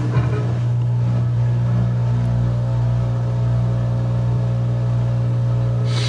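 Maytag front-load washer's drum motor running during its diagnostic spin test, a steady low hum as the drum turns.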